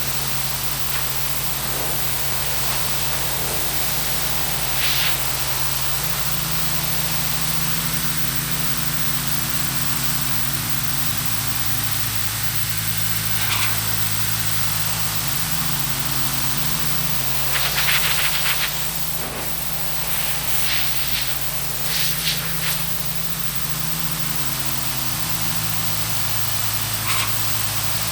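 Pressure washer running, its motor humming steadily under the constant hiss of the water jet, with several brief, brighter splashes.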